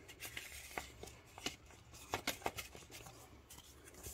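Paper cards being handled and pulled from a paper pocket: soft rustling with light, irregular taps and clicks.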